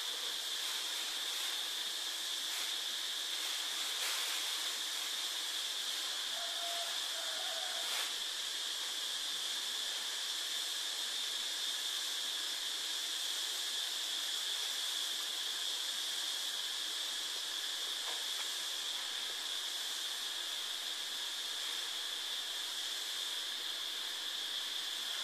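Steady background hiss with a faint high-pitched whine running through it.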